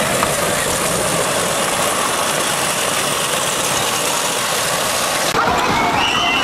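Amusement-park kiddie train running past close by on its track, a steady mechanical running noise. About five seconds in it gives way abruptly to a different din with thin high squeals.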